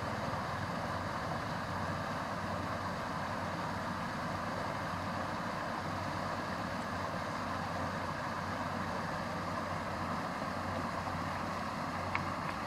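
A steady engine drone, unchanging throughout, with one small click near the end.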